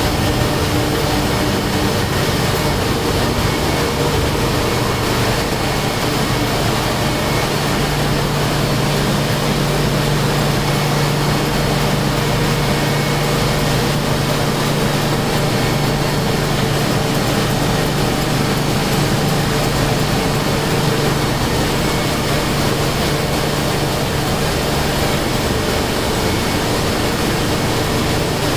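Komori Lithrone four-colour sheetfed offset printing press running: a loud, steady mechanical drone. A low hum in it grows stronger for a long stretch through the middle.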